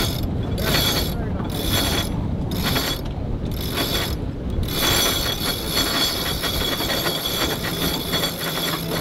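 Sailboat cabin-top winch ratcheting as the mainsail halyard is hauled in around its drum. Quick runs of pawl clicks come in pulls about once a second, then one unbroken run over the last four seconds as the sail goes up.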